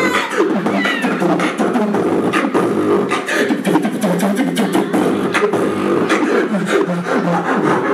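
Beatboxer performing into a handheld microphone: a dense, fast run of sharp percussive mouth clicks and snares, mixed with pitched vocal tones that glide up and down, without a break.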